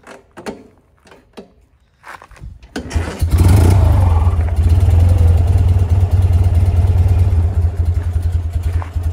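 1969 BMW R60/2's 600 cc flat-twin engine starting from cold, its carburettors primed with the ticklers: after a few light clicks it fires about three seconds in, revs briefly, then settles into a steady idle.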